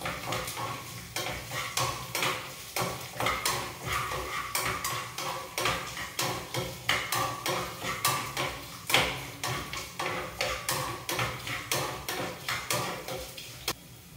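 Metal spoon stirring and scraping in a small pan of tempering frying in oil on a gas stove, with irregular clicks and taps against the pan, a few a second. The stirring stops just before the end.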